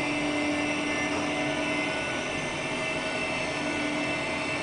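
Gylet hydraulic elevator's pump motor running steadily as the car rises, heard from inside the car: an even mechanical noise with a low hum that fades about two seconds in.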